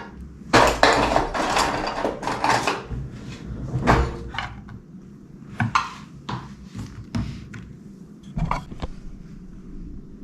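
Kitchen handling sounds as a cheese plate is put together: a couple of seconds of dense rustling and clatter, then several separate knocks and clicks as things are set down.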